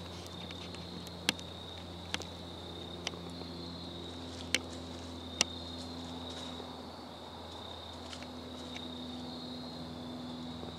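Insects trilling steadily at a high pitch, with a low steady hum underneath and a few sharp ticks or snaps scattered through the first half.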